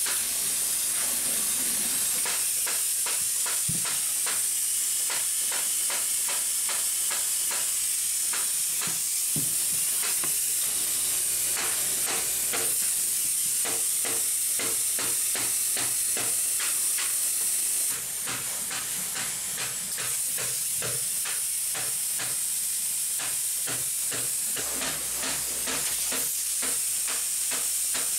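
Spray-foam gun hissing steadily as it sprays foam insulation into wall netting, with many small clicks and crackles over the hiss. The hiss drops a little about two-thirds of the way through.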